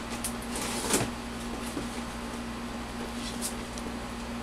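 Clear plastic bags around a stack of model-kit parts trees crinkling as they are handled. The loudest rustle is about a second in, with a few brief ones after it, over a steady low hum.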